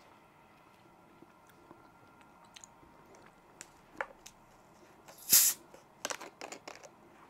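Plastic bottle of carbonated Coke Zero being twisted open: a click, then a loud hiss of escaping gas lasting about half a second, followed by a quick run of clicks and crackles from the cap and bottle.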